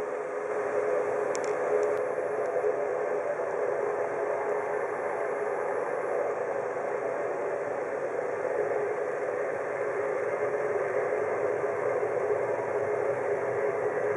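Boeing 787-9's twin turbofan engines at takeoff thrust during the takeoff roll: a steady jet roar with a hum under it, growing louder about a second in and holding.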